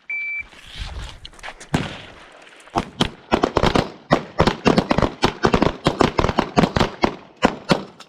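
A shot timer's short beep, then pistol fire from several shooters firing on the line at once, sparse at first and then a rapid, uneven string of several shots a second.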